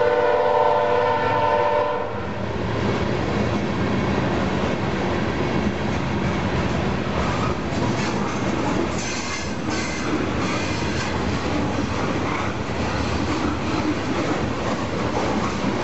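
Freight train locomotive horn sounding a steady chord that cuts off about two seconds in, then the steady rumble and clatter of loaded freight cars (covered hoppers and tank cars) rolling past close by, with a brief high squeal about nine seconds in.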